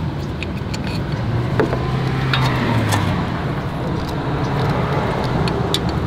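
Steady road traffic noise, with a low engine hum about a second and a half in, and a few light metallic clicks from small brake parts being handled as the rear brake pad wear sensor is worked loose.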